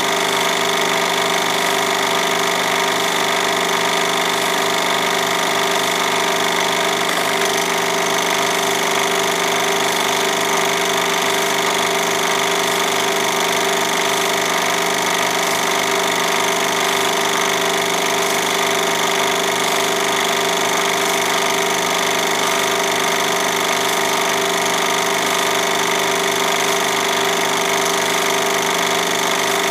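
Film projector running steadily: a constant mechanical whir and hum with a fast, even flutter from the film-advance mechanism.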